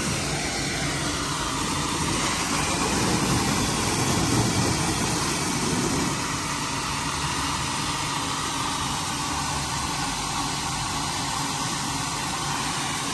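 Open fire hydrant gushing, a steady rushing spray of water hitting the street. In the first half a car drives through the spray, adding a low rumble that fades after about six seconds.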